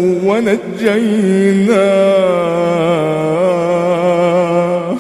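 Male voice chanting Quranic recitation in melodic tajwid style, drawing out the end of a phrase with pitch turns and then one long held note of about three seconds.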